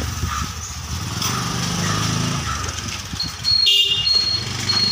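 A motor vehicle's engine running close by, its rumble rising and falling. From about three seconds in, a high electronic beep repeats about twice a second.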